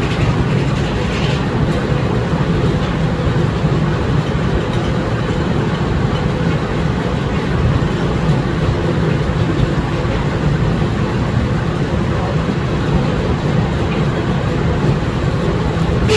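Steam-engine-powered sawmill running, a loud steady mechanical din of engines and machinery.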